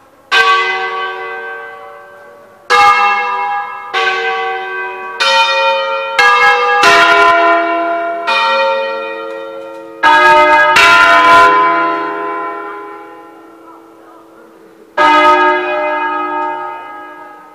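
Church tower bells played as a solemn bell concert in the Brescian style: about ten strikes of several differently pitched bells in an uneven melodic sequence, each ringing on and dying away. There is a pause of about four seconds before the last strike.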